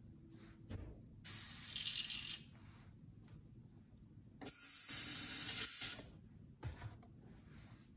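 Airbrush spraying paint onto a fishing lure in two bursts of hiss, the second, about four and a half seconds in, longer and louder.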